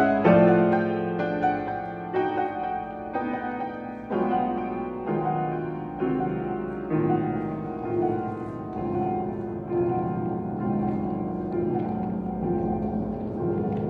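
Slow piano music, with notes or chords struck about once a second and left to ring, growing slightly softer toward the end.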